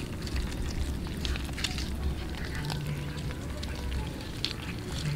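Cats chewing small whole raw fish at close range: a quick, irregular run of wet clicks and crackles. A low steady drone is heard for about a second midway.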